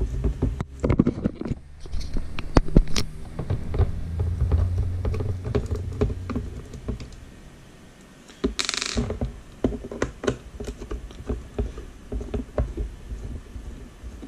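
Irregular small clicks and knocks of a screwdriver turning out the screws in the plastic case of a Turnigy TGY-i6 RC transmitter, the case shifting and tapping on the desk, with a short scratchy rustle about nine seconds in.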